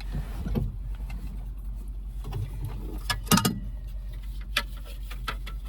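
Hand work with parts in a tractor cab: scattered clicks and taps, with a louder clatter about three seconds in, over a steady low hum.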